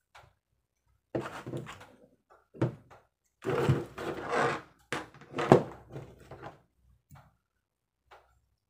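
Small plastic action-camera parts and packaging being handled on a tabletop: a run of knocks, scrapes and rustles, with the sharpest click about five and a half seconds in.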